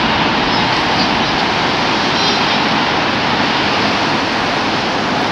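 Train crossing a steel-girder railway bridge overhead, heard from underneath as a loud, steady noise.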